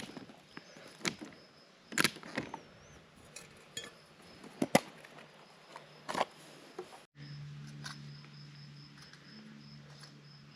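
Sharp clicks and light clatter of camp cooking gear being handled, then a steady low hum. A faint high insect trill pulses throughout.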